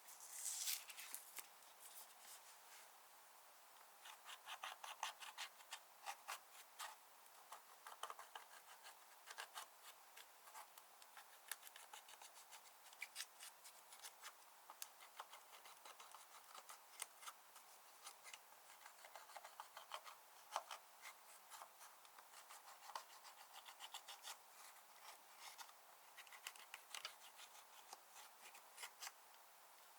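Slime being squished and mixed by hand: an irregular run of small sticky clicks and crackles, with a louder burst about half a second in.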